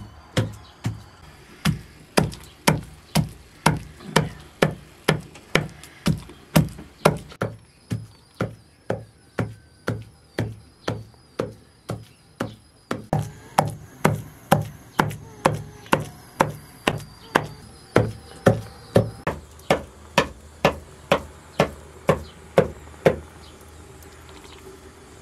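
Cleaver chopping raw meat on a wooden log chopping block: steady blows about two a second, softer for a while in the middle, stopping near the end.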